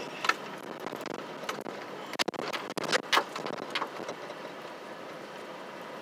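Vehicle driving on a snow-covered road, heard from inside the cabin: a steady rumble of tyres and engine, with a few sharp knocks around the middle.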